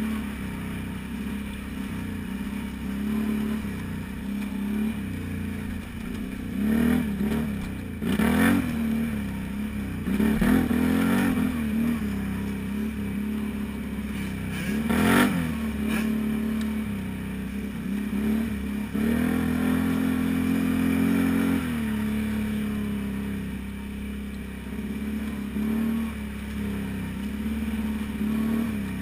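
Can-Am Renegade 500 ATV engine running at low to middling throttle on a rough trail, its pitch rising and falling as it is throttled on and off. Several clattering knocks come about a quarter and halfway through as the machine jolts over bumps.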